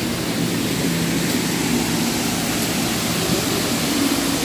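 Steady outdoor rushing noise with a faint, low, steady hum under it.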